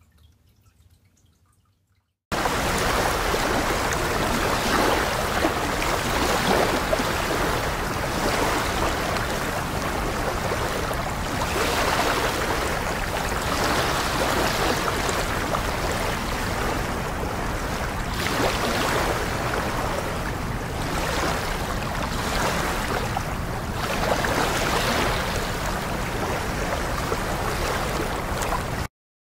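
Water running and trickling steadily. It starts abruptly a couple of seconds in and cuts off suddenly near the end.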